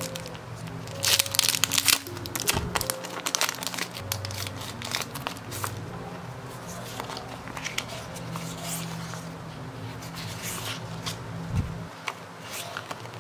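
Clear plastic packaging and sticker sheets crinkling as they are handled, loudest in a cluster about a second in, then in lighter scattered crinkles. Soft background music plays throughout.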